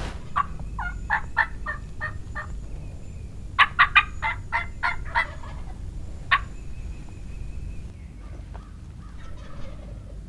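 Turkey calling: a run of short, evenly spaced yelping notes, then a louder, quicker run a second later, and one more note a moment after that.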